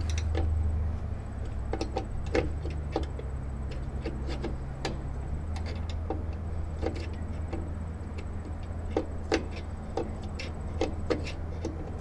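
Screwdriver turning the star-wheel adjuster of a Ford Ranger rear drum brake through the backing-plate slot: irregular sharp metal clicks, roughly one or two a second, as the adjuster wheel's teeth are flicked round to back off the brake shoes. A steady low hum runs underneath.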